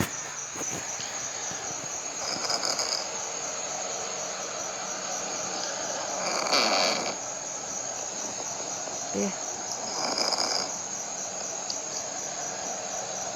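A cat snoring through her nose, a noisy breath about every four seconds, which the owner puts down to sporotrichosis damaging her breathing. A steady high-pitched chirring runs underneath.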